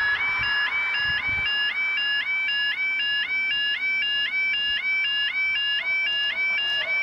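Level crossing audible warning (the electronic 'yodel' alarm) sounding continuously: a short upward-stepping two-tone warble repeating about two and a half times a second. It sounds as the road lights flash, warning that the barriers are about to lower for an approaching train.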